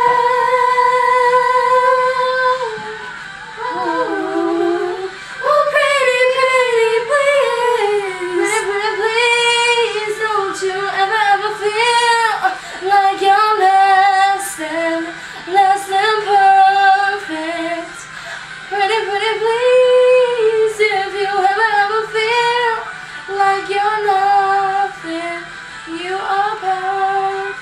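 Girls singing along to a recorded pop song, holding long notes with vibrato and moving through melodic runs, with the backing track faint underneath.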